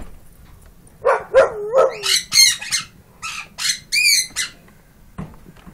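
Harsh squawking animal calls: three lower calls about a second in, then a quick run of high-pitched squawks.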